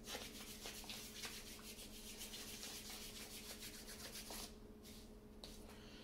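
Hands rubbing briskly together, a fast run of scratchy swishing strokes that stops about four and a half seconds in.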